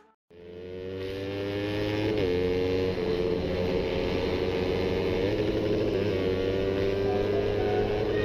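Motorcycle engine running hard at high revs, its note climbing in pitch with brief dips about two and three seconds in, as at gear changes while accelerating. The engine fades in from silence at the start.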